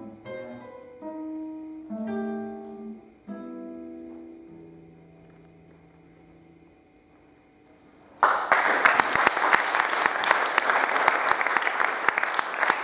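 Classical guitar playing the closing phrase of a piece, the final chord ringing out and fading away over several seconds. About eight seconds in, audience applause breaks out suddenly and is the loudest sound.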